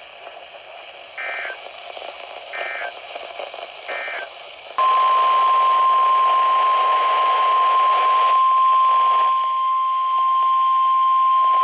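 Three short bursts of two-pitch EAS/SAME digital data tones over a weather radio's hiss, then a loud, steady single-pitch NOAA Weather Radio 1050 Hz warning alarm tone starting about five seconds in, the attention signal that precedes a new warning.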